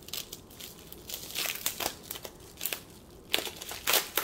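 Plastic wrapping around a rolled diamond-painting canvas crinkling in irregular crackles as hands handle and unwrap it. It is louder about a second and a half in and again in the last second.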